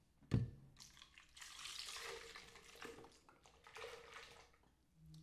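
A single knock, then milk being poured: a soft, steady liquid rush lasting a couple of seconds.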